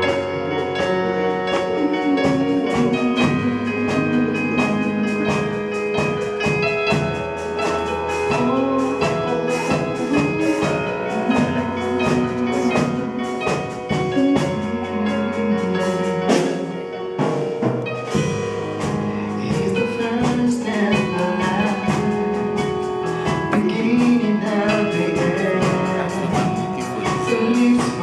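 A man singing a gospel worship song into a microphone, amplified through loudspeakers, over keyboard accompaniment with a steady drum beat.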